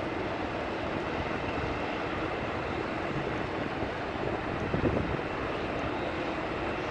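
Steady mechanical drone with a faint low hum, like machinery running, with a brief louder rumble about five seconds in.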